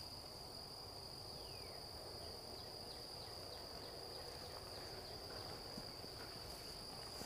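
Quiet woodland ambience: insects buzz on one high, steady pitch. A bird gives a single falling call about a second and a half in, then a run of short falling chirps, about three a second.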